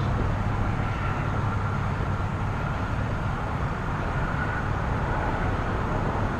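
Steady drone of road traffic on the nearby bridge: a low rumble with a faint high whine running through it.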